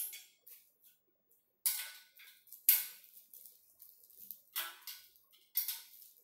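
Steel spanner clinking and scraping against a bolt and the steel frame of a treadmill's upright while the bolt is tightened by hand: a few sharp, irregularly spaced metallic clicks, the loudest about three seconds in.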